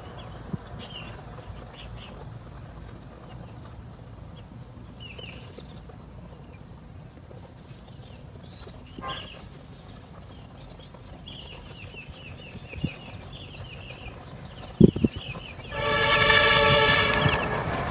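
Small birds chirp now and then over a steady outdoor background. A couple of sharp knocks come near the end, and then a horn sounds loudly for about two seconds, one held blast.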